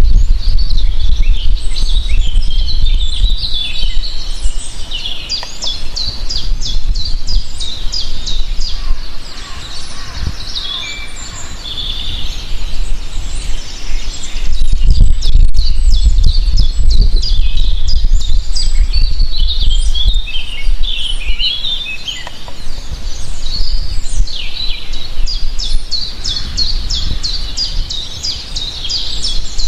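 Several songbirds chirping and singing over one another, with rapid trills, made of even quick notes, recurring several times. A steady low rumble runs underneath.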